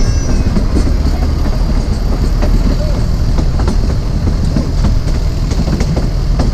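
Narrow gauge train running at speed, heard on board: a steady heavy rumble with the wheels clattering over the rail joints in quick, uneven knocks.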